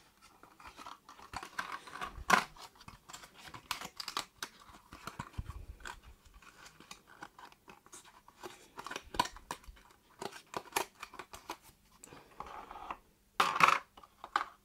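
Hands handling and setting down small items and a small cardboard box on a tabletop: scattered light clicks, taps and scrapes, with a sharper knock about two seconds in and a louder cluster of bumps and rustles near the end.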